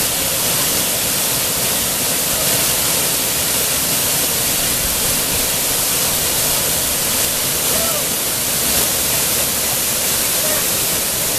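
Steady rush of heavily pouring, splashing water, loud and unbroken.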